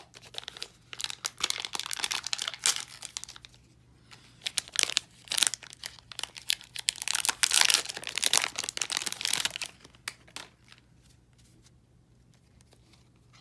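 Wrapper of a hockey card booster pack being torn open and crinkled, a dense crackling that dies away about ten seconds in.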